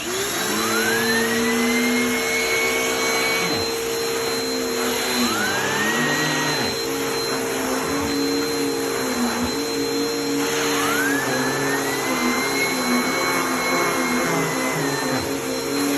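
Vacuum cleaner switched on at the start and running steadily while its rotating brush attachment works a mattress. A rising whistling tone comes in three times, about a second in, near six seconds and around eleven seconds.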